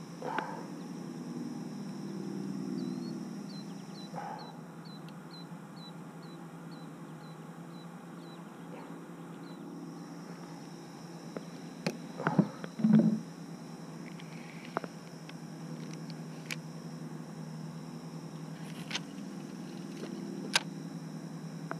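Hands handling fishing tackle, rigging a bobber float and baiting a hook with a nightcrawler, make a few sharp clicks and knocks, the loudest a cluster about twelve to thirteen seconds in, over a steady low hum. A quick run of about a dozen faint high chirps comes a few seconds in.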